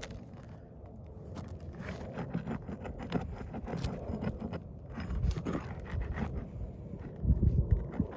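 Scraping and clicking of hand tools prying roofing nails out from under asphalt shingles, with a few louder low thumps near the end.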